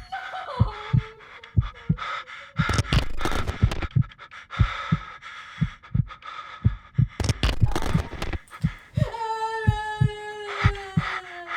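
Heartbeat-like thumping, about two beats a second, laid under tense sound design. A long falling tone glides down near the start and again about nine seconds in.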